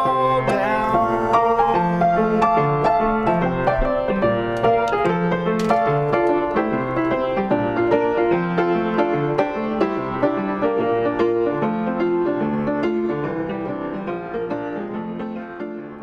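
Piano music playing an evenly repeated figure of chords, fading out over the last few seconds.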